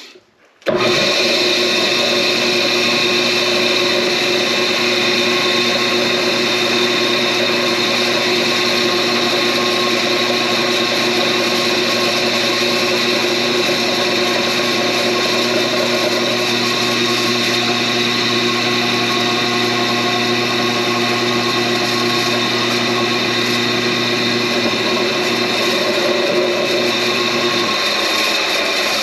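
Drill press switched on about a second in, its motor running with a steady hum and whine while a 0.090-inch bit drills an oiling hole through the aluminium exhaust bridge of a piston. The motor hum drops out near the end as the press is switched off.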